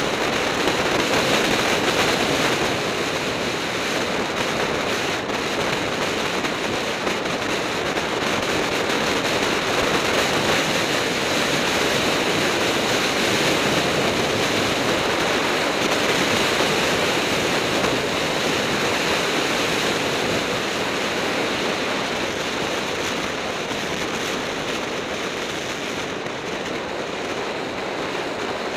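Wind noise on the microphone of a camera carried on a fast road-bike descent: a steady rush that swells a little midway and eases slightly near the end.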